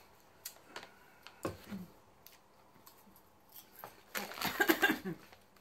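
Plastic snack bag of pre-popped popcorn crinkling for about a second near the end as a hand rummages inside it, after a few soft clicks and crunches earlier on.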